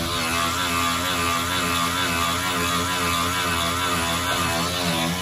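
A loud, steady mechanical drone from a motor-driven machine, with a low hum under a broad rushing noise; it cuts off suddenly at the very end.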